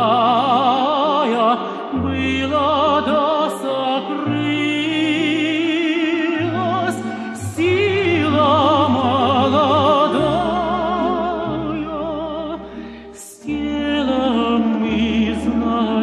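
Music: a Russian romance sung by a male voice with wide vibrato, in long phrases, over instrumental accompaniment with sustained low bass notes.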